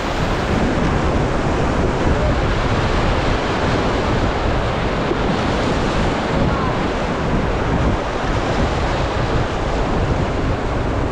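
Rushing whitewater of the Seti River rapids around a raft, a loud, steady churning with wind noise on the microphone.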